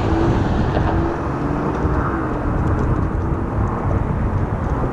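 Steady road-traffic noise with wind rumbling on the microphone, and a faint hum that wavers slightly in pitch over the first couple of seconds.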